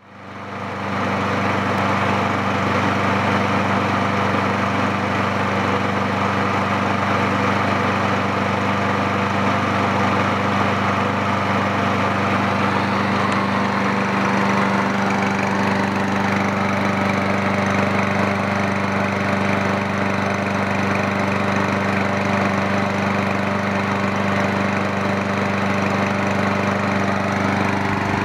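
Ariens walk-behind lawn mower's single-cylinder Kohler engine running at a steady speed. It fades in over the first second and then holds one even tone with no revving.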